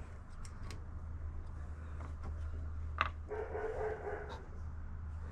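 Small clicks and taps of metal parts as a lathe tailstock is fitted and lined up, over a steady low hum. About three seconds in, a sharper click is followed by a short whine lasting about a second.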